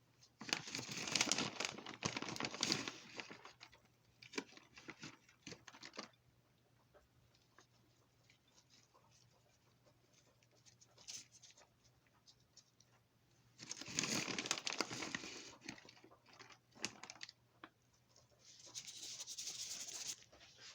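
Cheese packaging crinkling and rustling in four bursts of a few seconds each, as the cheese is added to chili fries, with faint light clicks in between.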